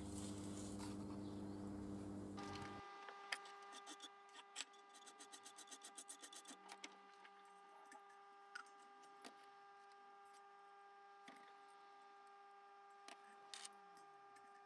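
Faint clicks and light taps of a new piston ring being pushed into a cast-iron motorcycle cylinder bore to check its end gap. There is a quick run of small ticks about four a second in the middle, then a few scattered clicks, over a faint steady hum.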